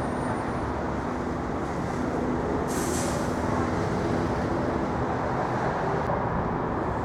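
Steady street traffic noise, with a brief hiss about three seconds in.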